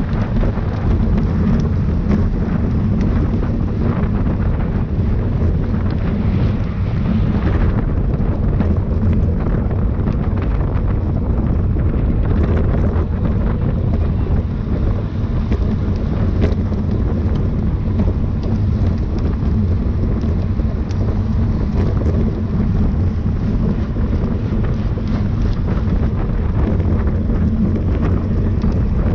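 Steady wind buffeting on the microphone of a camera moving at speed with a racing bicycle, a loud, even low rumble.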